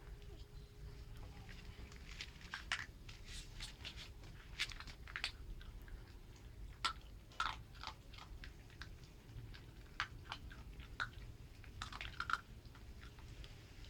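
Puppies chewing and crunching their food, with irregular sharp crunches and bites coming in quick clusters through most of the stretch.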